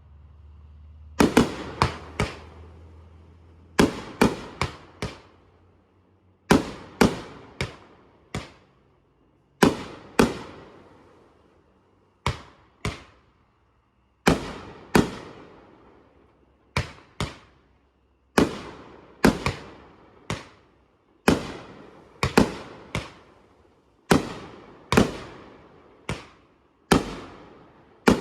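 Fireworks exploding: sharp bangs in quick clusters of two to four, a new cluster every couple of seconds, each bang echoing away.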